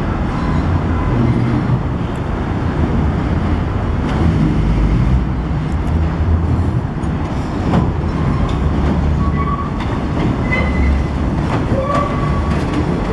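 R62A subway train on the NYC 1 line running along elevated steel track and passing close by, with a steady rumble. Wheels click over rail joints, and there are a few short high squeals from the wheels on the curve in the second half.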